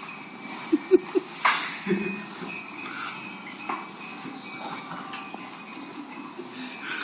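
Small bells on dairy cattle jingling now and then, over a steady high insect-like chirring, with a few short low animal sounds in the first two seconds.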